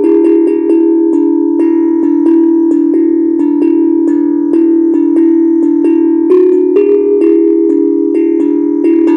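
Steel tongue drum (HAPI hand-struck drum tuned to a pentatonic scale) being played: a steady stream of struck metal notes, about two to three a second, each ringing on and overlapping the next.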